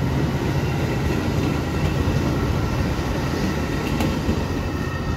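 Metra bilevel commuter coaches rolling past close by, a steady noise of steel wheels running on the rails.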